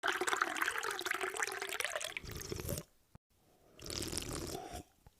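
Tea being poured into a cup: a splashing stream of liquid for nearly three seconds, then after a pause of about a second a second, shorter liquid sound.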